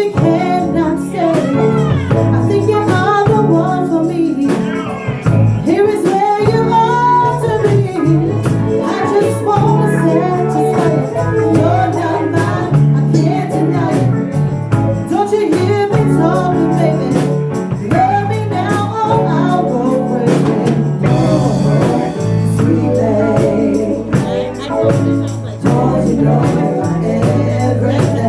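A band playing a song, with a singing voice over sustained instrument tones and percussion keeping a steady beat.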